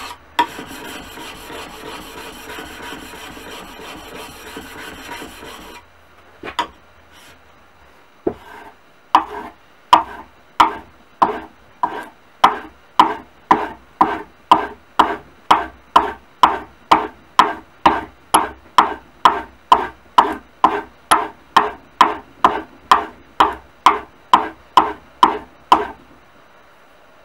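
Steel chisel blade rubbed back and forth on a water stone, a continuous scrape that stops about six seconds in. After two knocks, the chisel is drawn in short, even strokes, about two a second, across a dark sharpening block.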